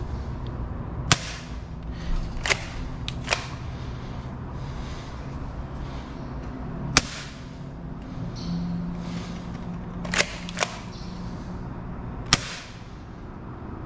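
A series of about seven sharp snaps at irregular intervals from a Bug-A-Salt 3.0 salt gun firing, two of them in quick succession about ten seconds in.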